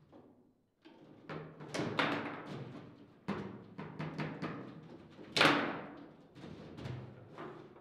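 Table football (foosball) table in fast play: a rapid, irregular series of sharp knocks as the ball is struck by the rod-mounted players and bangs against the table, each knock ringing on briefly in the table's body. The hardest knock, a shot, comes about five and a half seconds in.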